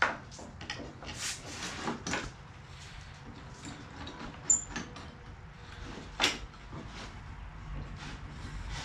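Scattered knocks, clicks and rustles of wood and a metal clamp being handled on a table-saw top while a steamed trim board is set against a bending form, with a sharp ringing click about halfway through and a louder knock shortly after.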